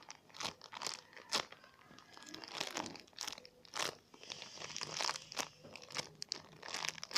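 Crinkling and crunching of a wrapper as a squishy toy is handled and squeezed, in irregular crackly bursts.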